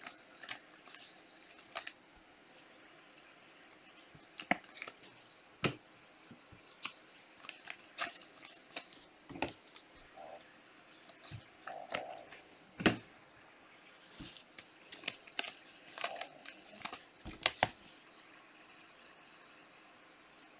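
Trading cards and card packs being handled on a table: irregular sharp clicks, snaps and short rustles as packs are torn open and cards are slid and set down.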